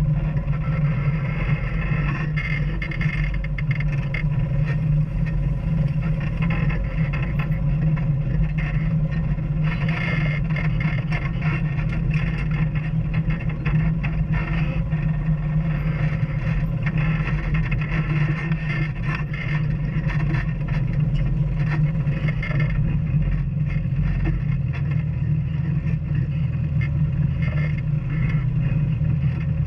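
Off-road vehicle engine running steadily while driving a trail, with frequent knocks and rattles from the vehicle bouncing over rough ground.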